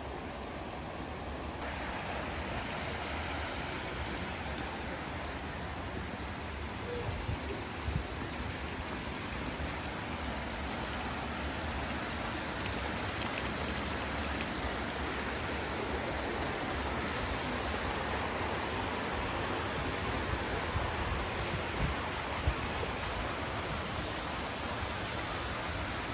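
River water running steadily below, a continuous rushing hiss that grows a little louder about two seconds in, with a few soft knocks.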